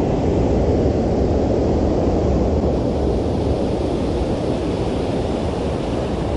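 Steady, deep rushing of creek water pouring over a low dam spillway and running past in the current.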